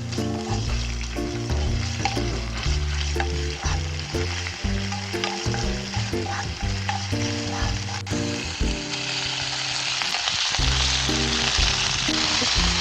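Food frying in a pan, a steady sizzle that grows louder about two-thirds of the way in.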